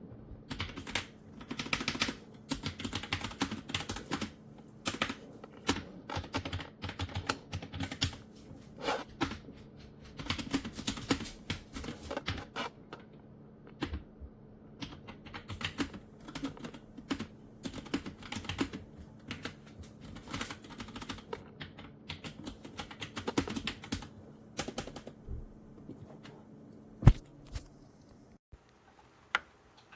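Typing on a typewriter-style mechanical keyboard with pink switches: fast runs of key clicks with short pauses, thinning to a few separate keystrokes near the end, one of them louder.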